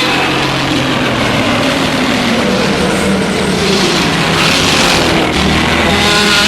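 A single long Godzilla sound effect: a loud, harsh, noisy blast with a pitched tone gliding slowly downward, fading away near the end.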